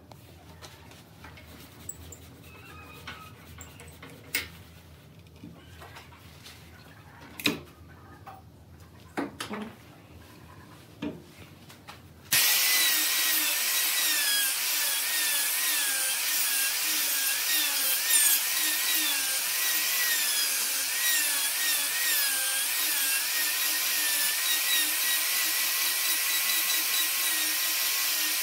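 A few faint knocks, then about twelve seconds in an angle grinder starts abruptly and runs steadily, its whine wavering in pitch under load as it grinds away the waste nub on a wooden vase's foot.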